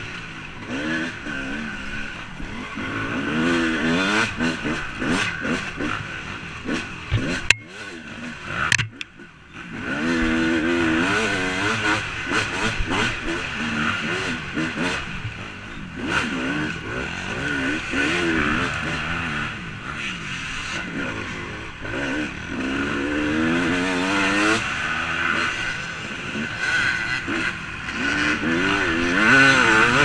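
Dirt bike engine revving up and falling back again and again as the rider goes through the gears on a motocross track, with wind rushing over the helmet-camera microphone. About seven to nine seconds in the throttle drops off briefly and two sharp knocks are heard before the engine revs up again.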